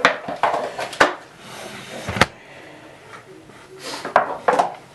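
Sharp clicks and knocks of tools and metal fittings, about six separate strikes, as a pressure gauge is fitted to an oil burner's fuel pump for a pump pressure test.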